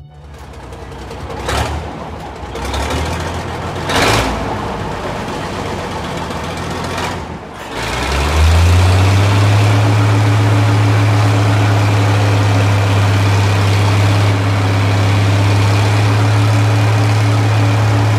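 Tower crane at work: a stretch of site noise with two knocks, then about eight seconds in the crane's motor spins up with a rising pitch and runs on as a steady low hum.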